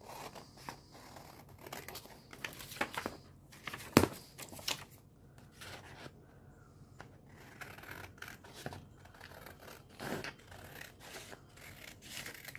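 Scissors cutting through a sheet of paper: a run of irregular snips with the paper rustling, and one louder, sharper snip about four seconds in.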